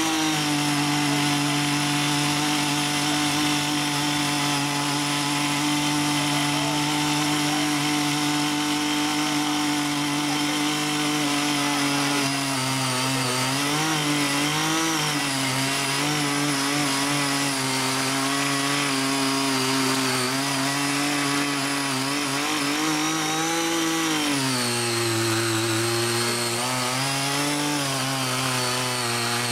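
Small 48.6cc petrol engine of a mini garden tiller running at high speed while its six rotary tines churn the soil. Its pitch wobbles briefly around halfway and dips for a few seconds near the end.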